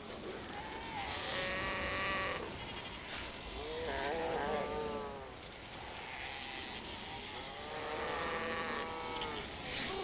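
Southern sea lions in a breeding colony calling: three long, wavering calls about a second and a half to two seconds each, the middle one bending up and down in pitch.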